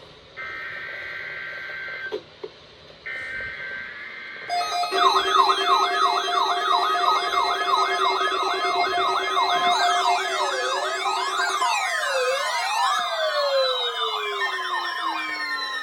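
Two short bursts of steady alert data tones, then, from about four and a half seconds in, several electronic siren tones sounding at once: fast warbling yelps, joined later by slower wails sweeping up and down.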